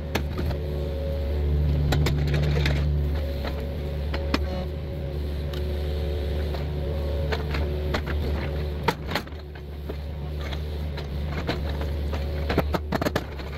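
An engine running steadily, its note swelling briefly about two seconds in, with scattered knocks and scrapes of broken concrete walkway slabs being moved, a cluster of them near the end.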